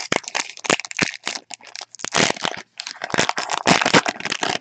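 Plastic wrapper of a 2018 Panini Unparalleled football card pack being torn open and crinkled in the hands: dense, irregular crackling and crinkling, loudest in the second half.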